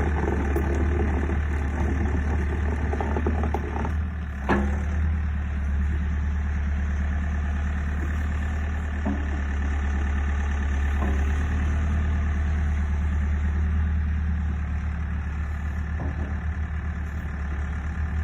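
Diesel engine of a Takeuchi TB180FRC compact excavator running steadily at idle, with a single sharp knock about four and a half seconds in and a few faint clicks later.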